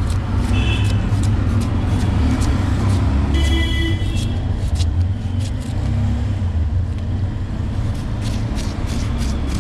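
Kitchen knife chopping an onion on a wooden cutting board: quick sharp taps, in runs, about four a second near the end. Under them, a steady rumble of road traffic, and a short high-pitched tone about three and a half seconds in.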